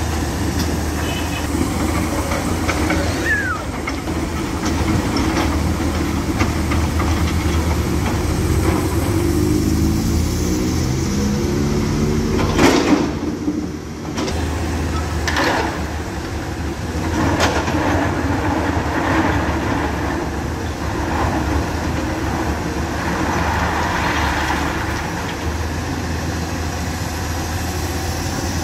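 Hyundai 210 crawler excavator's diesel engine running steadily while its bucket pushes and drags crushed rock, with rocks clattering and scraping. The engine note glides up and down shortly before a sharp knock about halfway through, and another knock follows a few seconds later.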